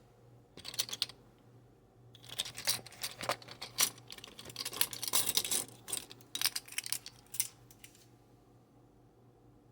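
Light metallic clinking and rattling of measuring spoons being handled while oil is measured out: a short burst about a second in, then a longer run of irregular clicks and rattles that stops near the end.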